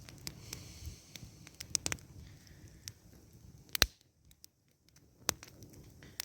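Wood fire crackling, with scattered sharp pops over a faint low rumble; the loudest pop comes a little before four seconds in.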